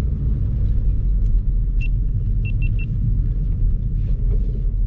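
2012 Mustang Boss 302's 5.0 V8 running with a steady, deep rumble. About two seconds in there are four short, high electronic beeps, the last three in quick succession.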